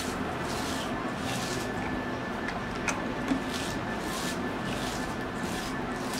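Hands squishing and working boiled mashed potato in a bowl: soft, rhythmic mushy strokes about twice a second, with a couple of small clicks near the middle, over a steady low hum.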